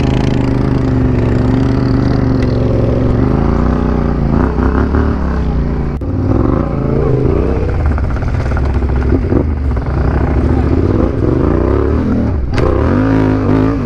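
Yamaha Ténéré 700's parallel-twin engine running under way on dirt, its revs rising and falling again and again with the throttle.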